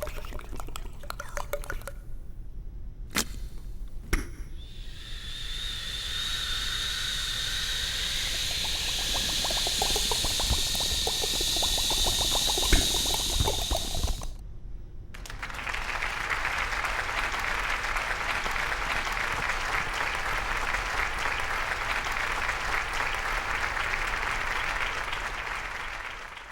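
Two sharp clicks, then running water with a high whistling tone for about nine seconds. After a brief pause, a second, steadier stretch of water noise runs on.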